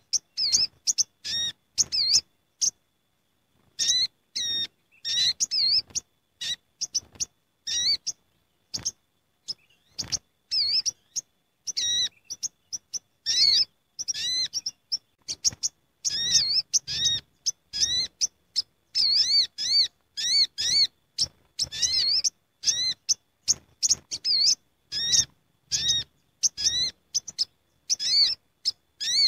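A gathering of olive-backed sunbirds (sogok ontong) calling noisily together: rapid runs of short, sharp, high chirps, broken by a couple of brief pauses.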